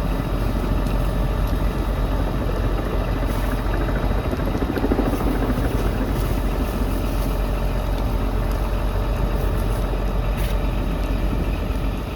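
A steady engine running, with a constant low rumble and no change in pitch.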